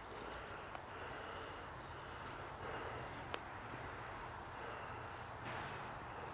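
Quiet outdoor ambience: a steady faint hiss with a thin high whine, and a single short click about three seconds in.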